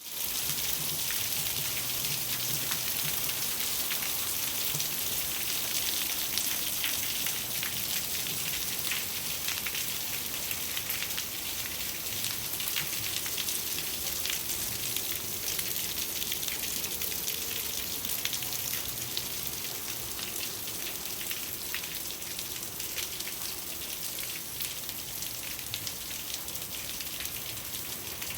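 Steady rain falling, a continuous hiss with many separate drop hits, easing a little over the second half.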